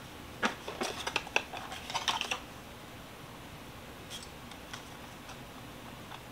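A quick flurry of clicks and small knocks from a perfume bottle and its cap being handled, then a few scattered light clicks.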